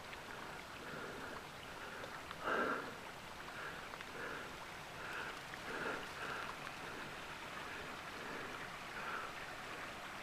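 Faint footsteps of a hiker walking along a mountain path, about two steps a second, one a little louder about two and a half seconds in.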